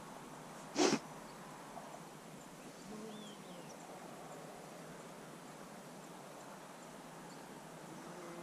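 A moose snorting once about a second in: a short, sharp blast of breath that is the loudest sound here, over a steady faint outdoor hiss.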